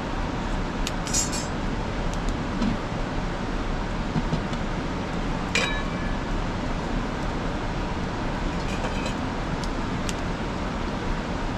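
Aluminium pot lid and metal cookware clinking as they are handled. A few light clinks come, with one sharp ringing clink a little past halfway, over a steady rushing noise.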